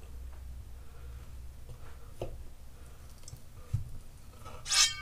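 Chef's knife cutting through a smoked, collagen-cased sausage on a wooden cutting board: a few faint clicks and a knock, then a louder scrape with a short ring near the end, over a low steady hum.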